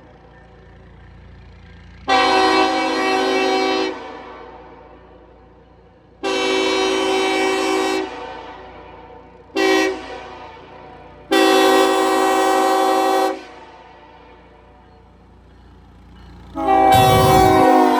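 Nathan Airchime K5LLA hybrid five-chime train horn sounding its chord in five blasts: four of about two seconds each and one short toot after the second. Each blast cuts off sharply and leaves a fading echo.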